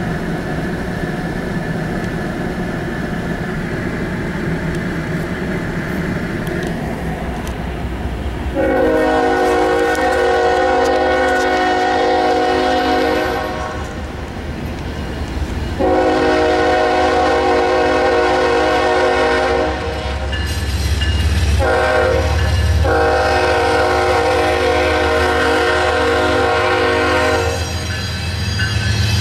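Norfolk Southern freight locomotive's air horn sounding the grade-crossing signal: two long blasts, a short one and a final long blast, over a steady low train rumble. The horn starts about a third of the way in, and the rumble grows heavier near the end as the train reaches the crossing.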